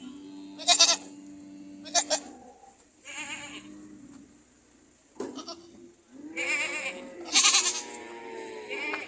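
Goats bleating repeatedly, about seven calls, several of them with a wavering, quavering pitch. The loudest are two short calls about a second and two seconds in and a longer one near the end.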